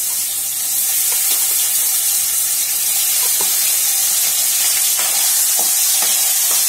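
Diced potatoes sizzling in hot oil with cumin seeds in a stainless steel kadhai, a steady loud hiss. From about three seconds in, a steel spoon scrapes and clinks against the pan a few times as the potatoes are stirred.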